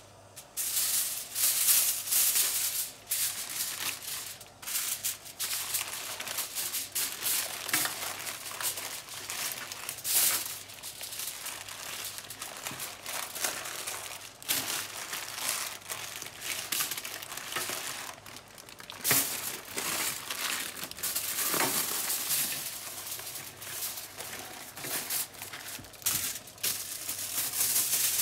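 Aluminium foil and baking parchment crinkling and rustling in an irregular, crackly stream as they are spread out and folded around a parcel of meat.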